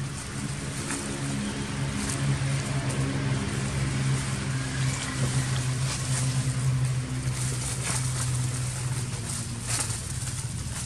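A motor engine running steadily, a low hum that is strongest in the middle and eases off near the end, with light crackles of dry leaves scattered through it.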